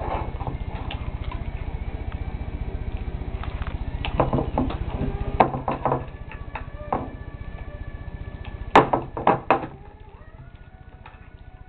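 Tableware knocking and clattering during a meal at the table: a cluster of sharp knocks about four to six seconds in, and a louder group of three or four near nine seconds.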